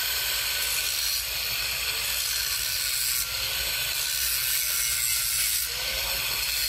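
Angle grinder with a thin cutting disc running and cutting through a steel tube: a steady grinding hiss.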